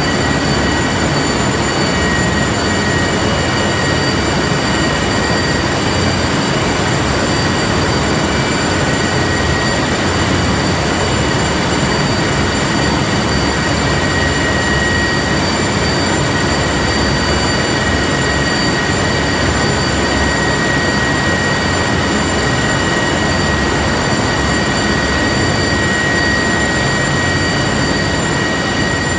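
TAI T625 helicopter hovering low: its twin turboshaft engines give a steady high whine of several held tones over the dense rush of the main rotor. The level eases slightly near the end.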